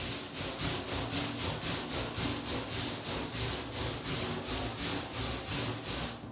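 Rubber balloon rubbed quickly back and forth on hair, a scratchy swishing at about four strokes a second that stops just before the end, charging the balloon with static electricity.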